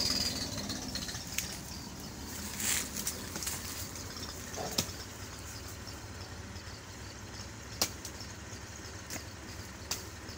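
An engine idling steadily with a low, evenly pulsing rumble, with a few sharp clicks scattered over it.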